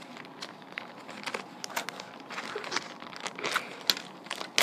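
Plastic packaging crinkling and rustling as it is handled and pulled open, with irregular sharp crackles.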